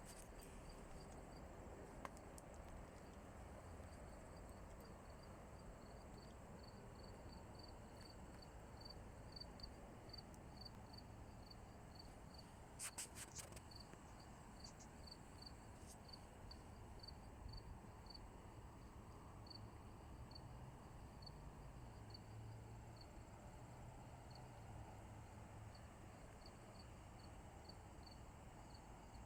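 Faint cricket chirping: short high chirps evenly spaced, about two a second, with a faint steady high hum behind them. A brief cluster of clicks about halfway through.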